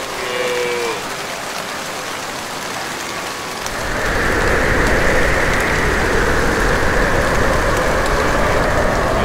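Steady rushing, rain-like noise that gets louder and fuller about four seconds in. A short pitched call sounds near the start.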